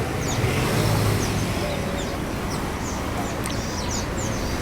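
Many small caged birds chirping, a steady run of short, high, falling chirps overlapping one another, over a low steady rumble of traffic.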